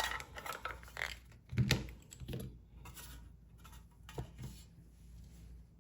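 Light, irregular clicks and taps of a metal door lock and small tools being handled on a hard surface, busier in the first half and sparser later.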